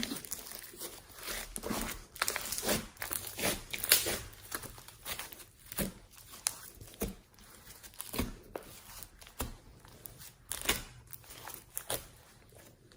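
Slime being squeezed and stretched by hand, making an uneven run of sticky crackles and pops.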